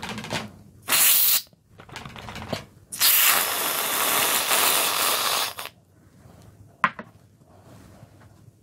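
Aerosol can of whipped cream spraying: a short burst about a second in, then a long hiss lasting about two and a half seconds as cream is piled onto a bun. A single sharp click comes near the end.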